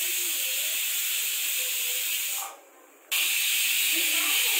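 Pressure cooker whistling: steam jetting from the weight valve in a steady hiss, which fades out a little past halfway; after a short gap a second whistle starts abruptly, a little louder. Each whistle is one of the three counted to time the cooking.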